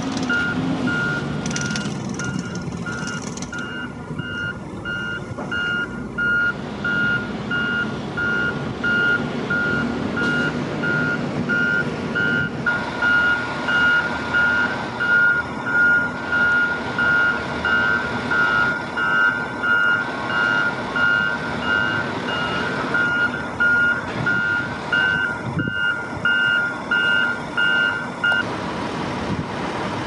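Backup alarm on a construction vehicle beeping steadily about once a second, stopping shortly before the end, over the continuous noise of site machinery.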